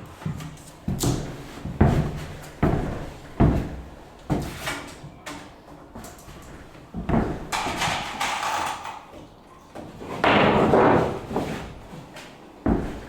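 A series of sharp knocks, about five in a row less than a second apart, followed by two longer rasping, scraping noises and one more knock near the end.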